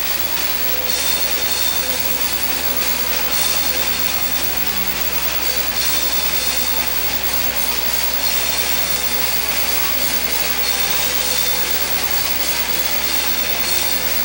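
Hardcore punk band playing live: a steady, dense, distorted roar of electric guitar, bass and drums, heavily clipped in a lo-fi recording.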